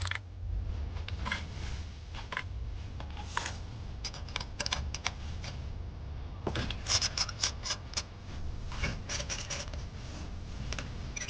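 Light clicks, taps and scrapes of hands working on the engine as cleaned spark plugs are put back in. The clicks come in small clusters, thickest in the second half, over a steady low rumble.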